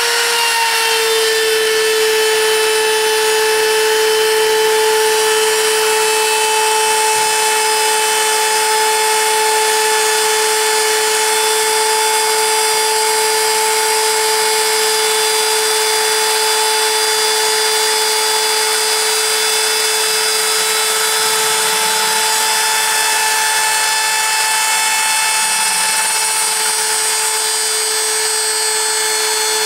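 CNC router spindle running at speed: a steady, high-pitched whine that drops slightly in pitch in the first second, then holds.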